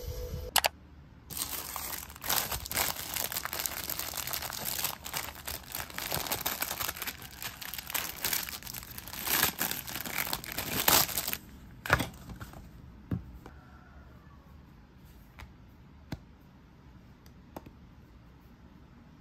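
Clear plastic packaging bag crinkling and crackling as it is handled and opened, for about ten seconds. After that it goes quieter, with a few isolated light clicks.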